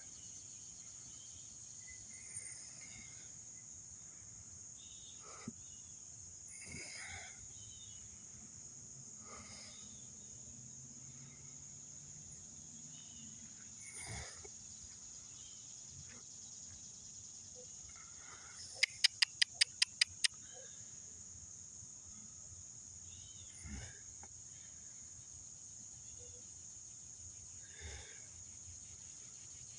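Steady high-pitched insect chorus droning without a break. A little past the middle comes a quick run of about eight sharp clicks, the loudest sound here, with a few faint scattered knocks elsewhere.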